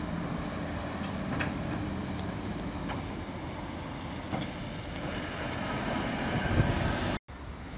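Road traffic led by a skip lorry's diesel engine as the lorry drives past, growing louder towards the end. The sound cuts off abruptly near the end and gives way to a quieter background.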